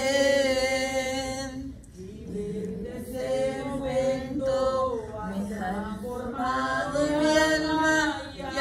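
Unaccompanied singing of a Spanish worship song: long held, wavering notes, with a short break about two seconds in.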